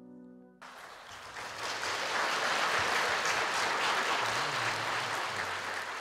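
The final sustained chord of the alto saxophone and piano dies away, and about half a second in an audience breaks into applause, swelling to full strength within a couple of seconds.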